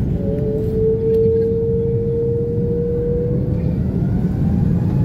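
Airliner cabin noise on the runway: a steady low rumble of the jet, with a clear steady whining tone lasting about three seconds and a fainter rising whine near the end.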